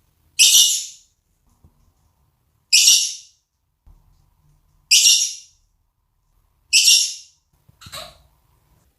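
Monk parakeet calling: four loud, high calls about two seconds apart, each under a second, then a softer, shorter call near the end.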